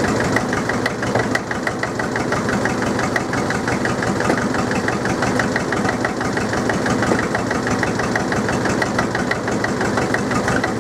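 International BD-264 four-cylinder diesel in a Drott 100 loader running steadily with a rapid, even beat, just after a cold start and still warming up while it smokes heavily.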